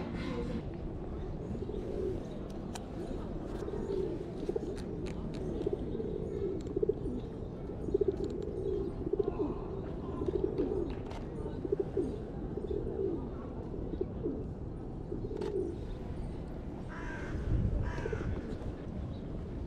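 A bird's low cooing, repeated again and again, over a steady background hum.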